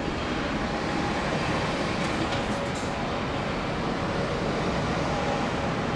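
Steady roar of a Boeing 777's jet engines on approach, even throughout, with a few faint steady tones riding on the noise.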